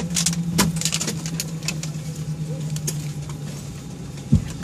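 Airliner cabin noise just after landing: a steady low hum that slowly sinks in pitch, with many small clicks and clatters and one loud thump near the end.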